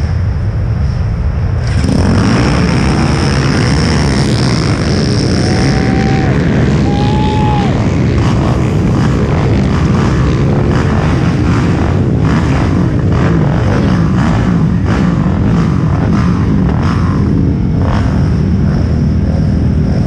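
A row of race ATV engines firing together and revving hard as the quads launch from the start line about two seconds in, the engine noise then staying loud and steady.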